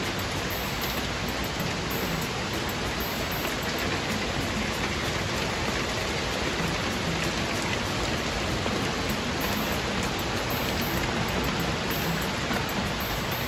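Steady rain falling on leafy trees, grass and a wooden deck: an even hiss with scattered drop patter.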